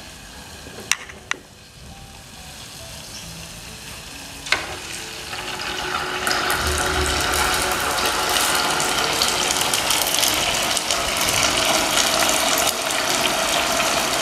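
Two sharp clicks, another knock about four and a half seconds in, then pempek fish cakes going into hot oil in a frying pan: a crackling sizzle starts and swells to a loud, steady fry.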